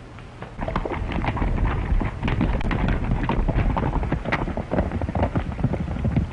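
Horses galloping: a fast, irregular clatter of hoofbeats over a low rumble, starting about half a second in.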